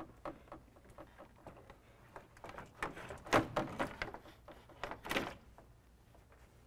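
An aftermarket LED mesh grille being set into a pickup truck's grille opening: a run of hard clicks, knocks and scrapes, loudest around the middle and again just before the end, then dying away.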